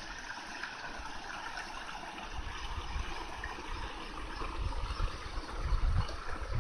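Small woodland stream babbling and trickling steadily over stones. Low buffets of wind on the microphone build near the end.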